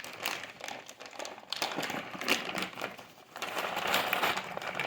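Crinkly plastic rustling with many small clicks as hands handle Cat 6 cable wires and RJ45 connectors, in two stretches with a brief lull just past the middle.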